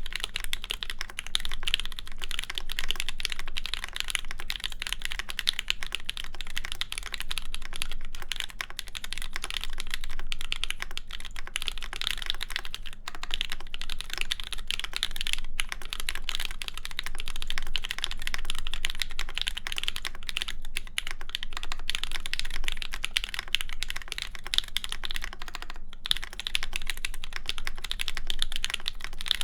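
Fast, continuous typing on an ai03 x PrimeKB Meridian mechanical keyboard with an aluminum full plate, GMK keycaps and JWK Ms Piggy linear switches lubed with Krytox 205g0. The keystrokes come thick and steady, with a few brief pauses.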